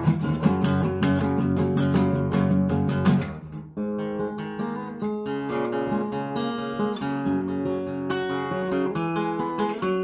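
Acoustic guitar being strummed with no singing. About three and a half seconds in the playing briefly drops away, then carries on more softly with ringing chords.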